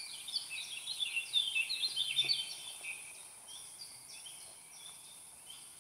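Small birds chirping and singing in quick high notes, busiest in the first three seconds and then sparser.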